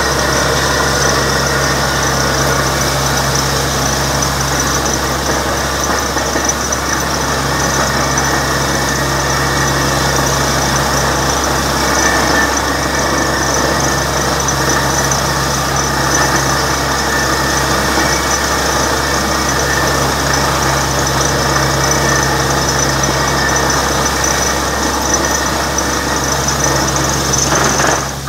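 Borewell drilling rig running steadily under load: its engine and air compressor drive the drill string while compressed air blows water and rock slurry out of the bore in a continuous hissing spray, over a low steady drone.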